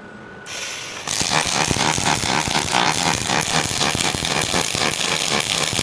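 A short hiss, then a welding arc strikes about a second in and keeps up a loud, steady crackle, typical of a robot-held MIG torch welding.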